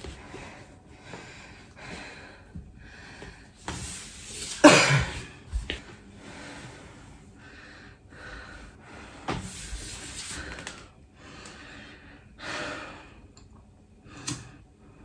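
A man breathing hard and gasping, winded after a set of push-ups, with one loud gasp about five seconds in.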